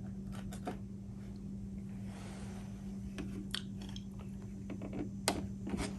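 A few faint, scattered clicks and taps over a steady low hum, the sharpest click about five seconds in.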